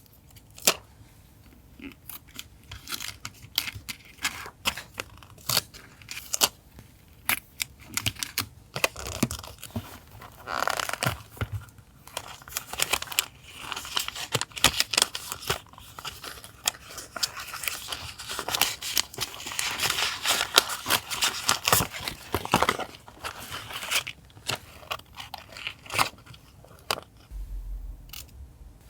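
Paper being handled close up: many small taps and clicks, with longer stretches of tearing and crinkling paper in the middle.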